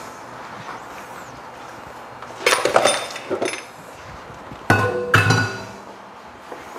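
Glassware and kitchen utensils clinking: a few clinks about two and a half seconds in, then two ringing clinks around five seconds in.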